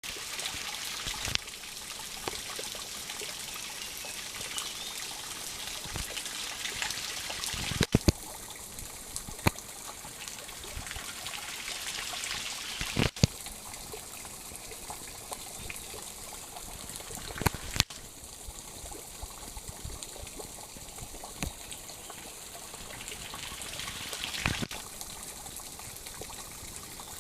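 Waterfall: a steady rush of falling and splashing water, its tone shifting abruptly several times. Sharp clicks stand out about half a dozen times.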